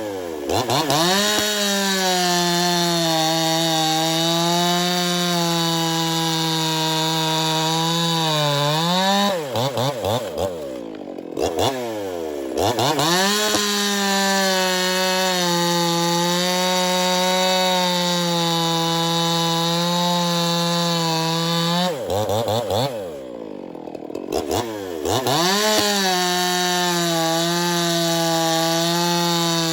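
Ported Echo CS-4910 50cc two-stroke chainsaw cutting through maple at steady, held-down high revs. Three long cuts, with the engine dropping off and revving back up between them, about nine and twenty-two seconds in.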